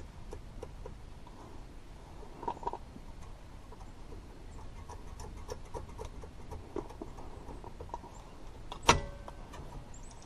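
Hand tools and metal brake parts being handled: scattered light clicks and taps, a double clink about two and a half seconds in, and one sharp metallic clank near the end that rings briefly.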